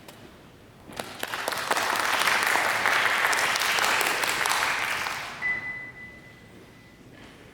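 Audience applauding: clapping swells about a second in, holds, then dies away. As it fades, a thin steady high tone sounds for about a second and a half.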